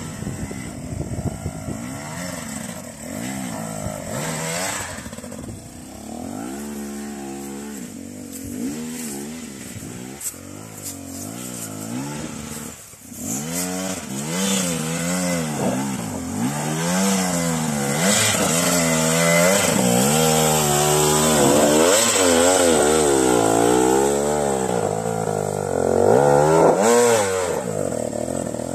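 Two-stroke enduro motorcycle engines revving up and dropping back over and over under load on a steep dirt climb. There is a short break about halfway through.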